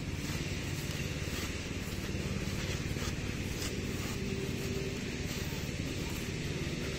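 Petrol grass trimmer running steadily with a continuous engine drone.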